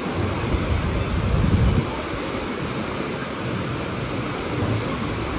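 Wave pool waves washing and breaking in a steady rush, with a louder low rumble from about half a second to two seconds in.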